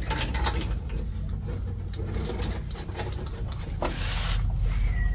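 Wrench and metal parts clicking and scraping against a diesel engine block as it is taken apart, many small irregular clicks and knocks, over a steady low rumble, with a brief hiss about four seconds in.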